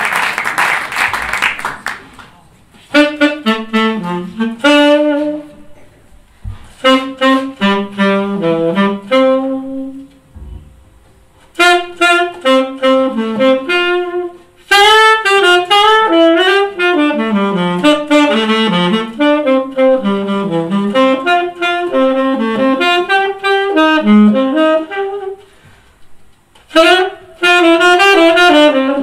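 Applause dying away, then an unaccompanied jazz saxophone solo: quick runs of notes in separate phrases with short silent pauses between them.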